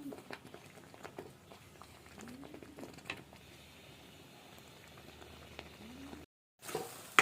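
Thick halwa bubbling in a pan of ghee, with irregular small plops and pops.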